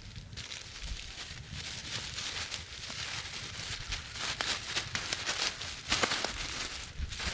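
Wind in the forest, a rushing hiss that grows stronger, with a low rumble on the microphone and quick crackling and rustling of dry leaves and twigs.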